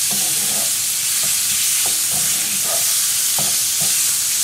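Shrimp and garlic frying in olive oil and butter over high heat, with a steady sizzle. A utensil scrapes and knocks against the pan every second or so as they are stirred.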